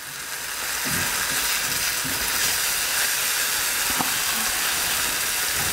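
Diced onions sizzling steadily in a frying pan over a gas flame at about three-quarter heat, being fried down. The sizzle swells over the first second, and the spatula taps lightly against the pan a couple of times.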